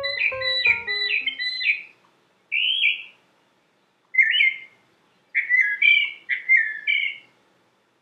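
Northern mockingbird singing: short chirping phrases, several repeated two or three times in a row, in bursts with pauses between. The last notes of a piano tune fade out in the first second.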